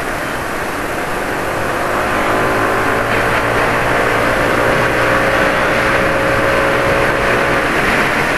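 Yamaha NMAX scooter's engine pulling at road speed, its note rising gently as it accelerates, over a steady rush of wind on the microphone.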